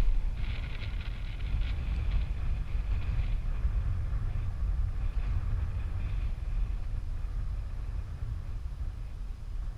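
Strong wind buffeting the microphone: a steady low rumble, with a higher hiss over the first three seconds or so.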